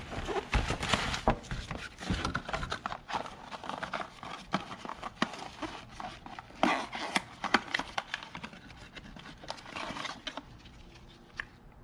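Rustling and clicking as the parts of an oil change kit and their packaging are handled, in irregular bursts with sharp knocks mixed in.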